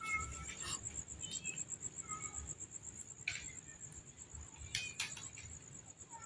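Crickets chirping: a steady, rapid high-pitched trill, faint, with a few soft clicks.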